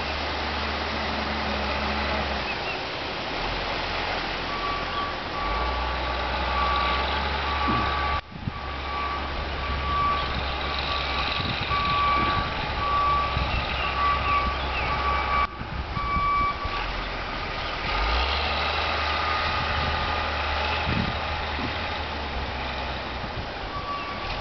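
A heavy vehicle's engine running with a low rumble while its reversing alarm beeps steadily, about once a second, starting a few seconds in and stopping about two-thirds of the way through, then starting again at the very end.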